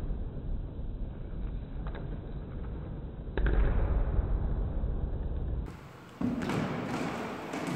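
Thuds of a person vaulting over a wooden vaulting box and landing on a gym mat, over a low rumble; the loudest thud comes about three and a half seconds in. A scuffing noise follows near the end.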